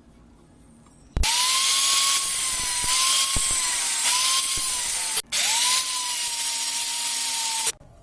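A power tool runs on metal with a steady whine and a hiss, for about four seconds, stops for a moment, then runs again for about two and a half seconds before cutting off.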